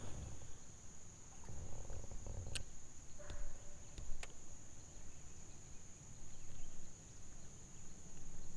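Steady high-pitched insect drone, with a few faint clicks and soft low knocks from the small boat and fishing tackle.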